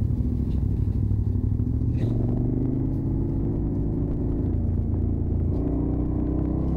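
Large adventure motorcycle's engine running steadily, heard from the rider's seat: a low, continuous rumble whose pitch shifts a little about two seconds in and again near the end.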